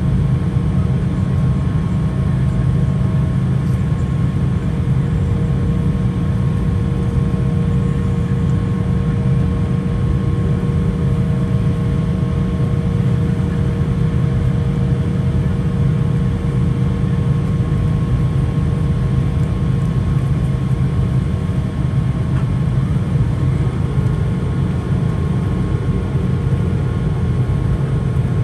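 Steady cabin noise inside an Embraer E175 taxiing after landing, its GE CF34-8E turbofans near idle: a loud, even low rumble with a few faint steady whining tones above it.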